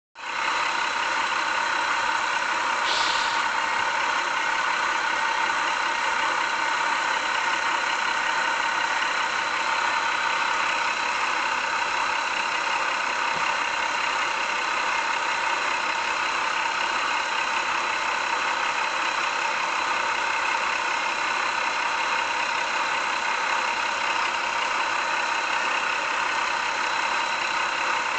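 Steady, unchanging running noise of a train, with a short high hiss about three seconds in.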